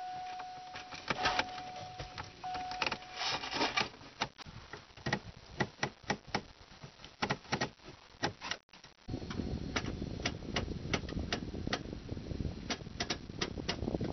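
A steady dashboard warning chime sounds in several pulses after the ignition key is turned. Repeated sharp clicks follow as the automatic transmission's gear selector is worked through its positions with the newly fitted shifter cable. About two-thirds of the way in, a low steady noise joins the clicks.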